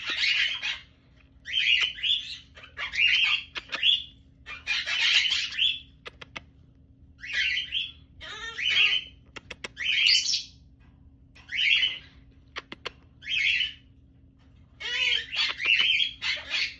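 Small pet parrot chirping and squawking in a series of about a dozen short calls, roughly one a second, with a few faint clicks between them.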